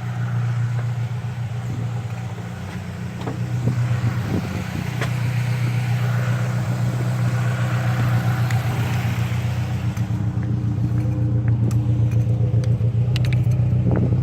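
Saab Aero engine idling rough and steady, with a few light clicks over it. The engine is burning oil and mixing oil and coolant after a head gasket replacement, which the owner suspects is a damaged cylinder sleeve for piston number 3.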